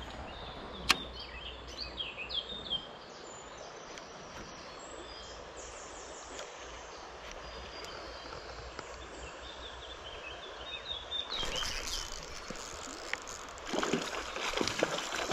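Songbirds chirping over the steady rush of a shallow stream, with one sharp click about a second in and water splashing near the end.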